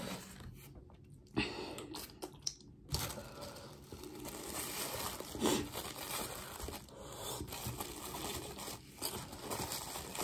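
Thin clear plastic crinkling and crackling as it is crumpled and pulled apart by hand. A few scattered crackles at first, then a dense crinkling from about three seconds in.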